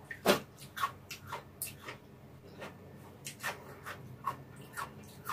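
Close-miked eating mouth sounds: irregular wet clicks and smacks of chewing, about two or three a second, the sharpest about a third of a second in.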